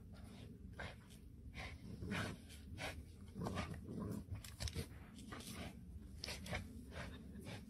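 Two dogs play-wrestling, heard faintly: short scuffling and dog breathing noises, a few each second.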